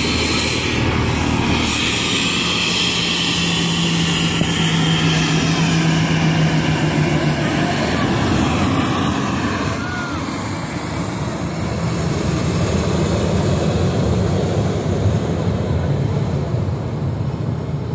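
Boeing 737-800's twin CFM56-7B turbofan engines at takeoff power as the airliner rolls down the runway past the listener: a loud, steady jet roar with a high fan whine, growing a little quieter near the end as it moves away.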